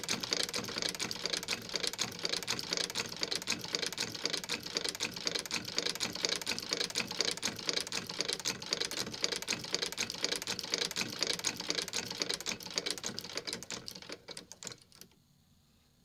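Unrestored Singer 29K-71 leather-patcher sewing machine stitching at a steady pace, a fast run of mechanical clacks. The clacking slows and stops about fifteen seconds in.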